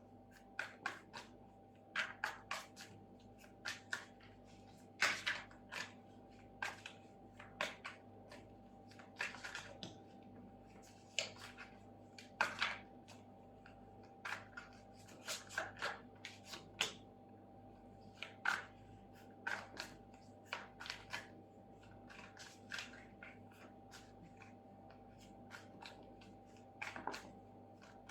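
Tarot cards being shuffled and handled: irregular soft flicks, slaps and short swishes of cards, over a faint steady hum.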